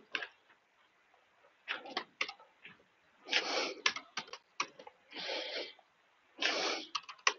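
Computer keyboard typing in short, irregular bursts of keystrokes with pauses between them.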